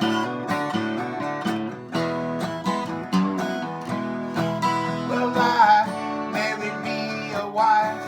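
Acoustic guitar instrumental break in a folk-rock song: steady strumming under a melody line, with a few sliding notes around the middle and again near the end.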